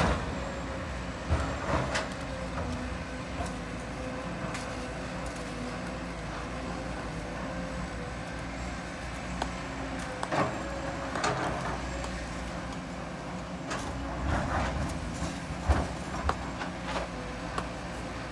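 Kobelco hydraulic excavator's diesel engine running steadily while its bucket drops sand and stones into a dump truck's bed, with irregular clattering knocks now and then.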